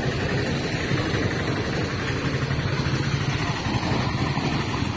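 Motorcycle engine running steadily at low road speed, with a steady rushing noise over it.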